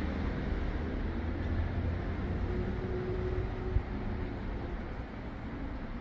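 Cars passing on a nearby road: a steady low traffic rumble that eases a little near the end.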